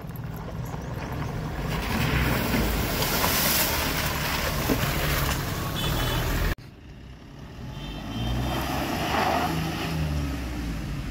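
Mahindra Bolero diesel SUV driving over rough, muddy ground, its engine running with tyre and body noise. It grows louder about two seconds in as the vehicle passes close, cuts off abruptly past the middle, then rises again as the vehicle drives on.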